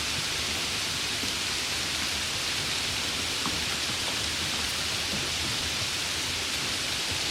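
Steady rain falling, an even hiss with a few faint individual drops ticking through it.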